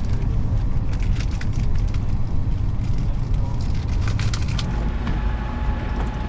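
Steady low rumble of a road vehicle on the move, with light rattling clicks in the middle and a faint steady whine setting in near the end.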